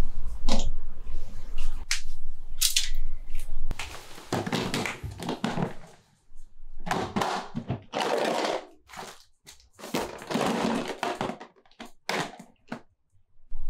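A hard plastic fishing tackle box being opened and rummaged by hand: irregular clicks and knocks, then several short stretches of rattling, rustling clatter as items and a plastic lure box inside are moved about.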